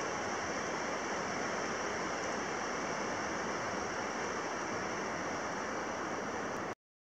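Steady rushing noise with no clear source, cutting off abruptly to silence near the end.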